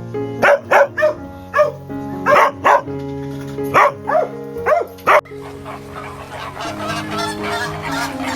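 A dog barking in a quick, uneven run of about a dozen loud barks over background music. About five seconds in the barking stops and chickens start clucking, a busy chatter that goes on under the music.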